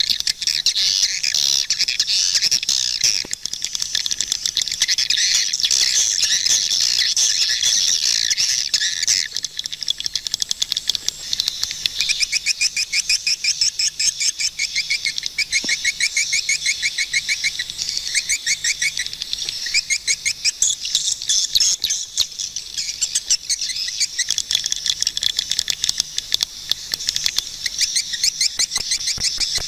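Swiftlets calling: a dense, continuous mass of high chirps and twitters. From about twelve seconds in, rapid trains of short repeated notes run through it.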